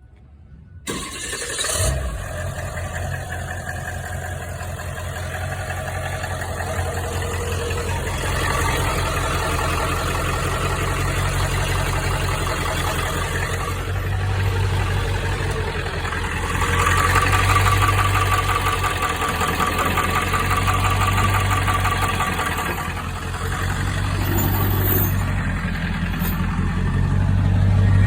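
2000 Ford F-250's 7.3-litre Powerstroke V8 turbo-diesel starting up about a second in, then running continuously, its sound swelling louder several times.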